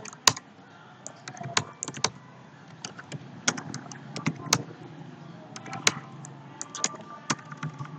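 Computer keyboard being typed on: irregular key clicks, a few of them sharper and louder than the rest.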